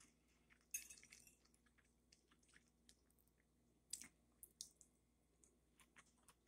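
Faint scrapes and clicks of a metal fork against a plate as it scoops food, with soft chewing between. The loudest are a brief scrape about a second in and a sharp click about four seconds in.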